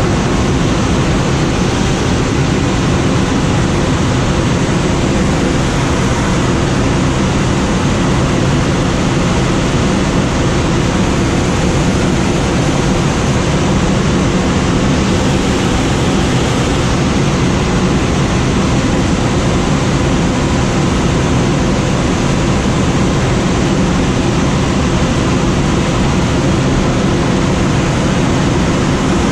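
Steady rush of air streaming over a glider in flight, heard from inside the cockpit: an even, unbroken whoosh with no engine behind it.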